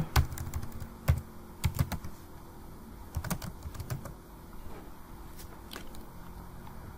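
Computer keyboard typing: irregular keystroke clicks, a handful in the first four seconds, then only faint taps.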